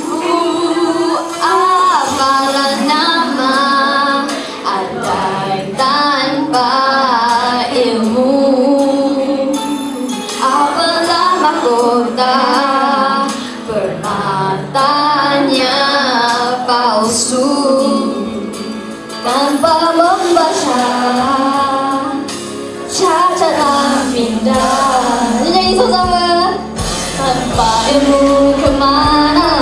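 Schoolgirls singing a Malay song into handheld microphones over a backing track.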